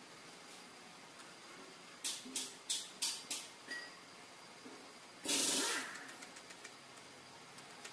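Steel tools being handled on a cylinder boring machine: a quick run of about five sharp metal clanks about two seconds in, then a louder rushing burst lasting about half a second, a little after five seconds.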